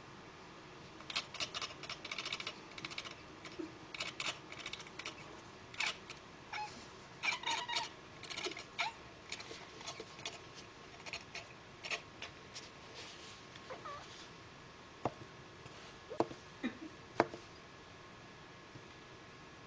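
Domestic cat chirping and chattering at birds: quick runs of short, clicky chirps through the first half, then a few separate chirps further apart.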